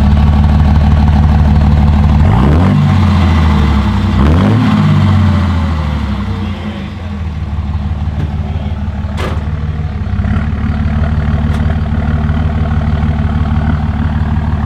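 Diesel pickup truck engine running loud through a freshly fitted axle-dump exhaust, revved twice in the first few seconds, then settling to a steady idle.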